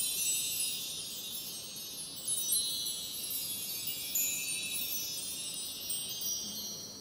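Twinkling chime sound effect: many high, bright tinkling tones overlapping continuously, fading out near the end.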